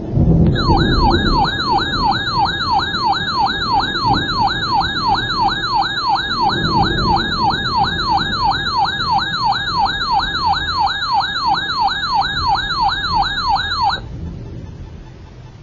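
Electronic siren-style alert tone sweeping rapidly up and down, about three sweeps a second, sounding as the attention signal of a severe thunderstorm warning. It starts suddenly and cuts off sharply near the end, over a continuous low rumble of rain and thunder that carries on and fades after the tone stops.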